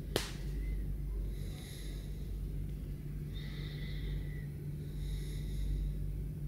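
Steady low hum of a hotel room's background noise, with a single sharp click just after the start and faint high whistling tones that come and go.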